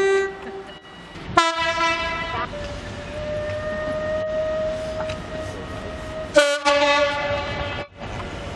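Train's two-tone horn sounding: a low note for about a second, then a long higher note held for about four seconds, then a final loud blast that cuts off sharply near the end.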